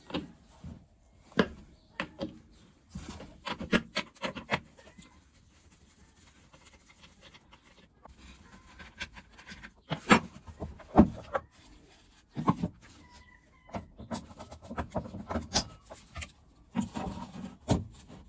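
Scattered clicks, clinks and knocks of a Stihl MS660 chainsaw being taken apart by hand: the bar nuts loosened, the side cover pulled off, and the bar and chain lifted off and set down on a wooden bench. There is a quieter pause partway through.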